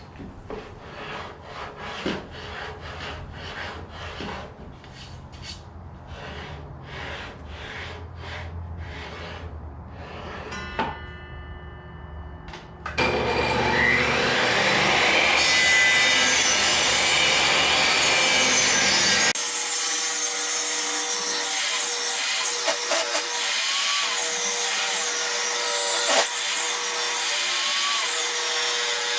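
Table saw with a 60-tooth blade ripping a board from dry ash firewood. For the first dozen seconds there is a quieter, rhythmic scraping. About 13 seconds in it jumps to a much louder, steady cutting noise that lasts to the end, with the blade straining in the hard, split wood.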